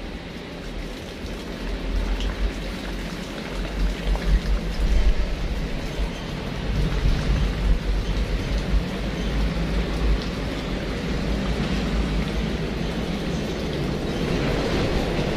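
Wind buffeting the microphone in gusty low rumbles over a steady rushing noise, growing louder about two seconds in.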